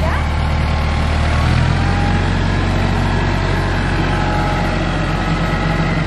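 The engine of a TYM compact tractor runs steadily as its front loader scoops into a mulch pile and lifts a full bucket.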